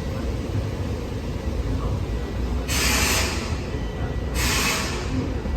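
Railway diesel locomotive running with a steady low rumble, with two short hisses of released compressed air, one a little under three seconds in and one about four and a half seconds in.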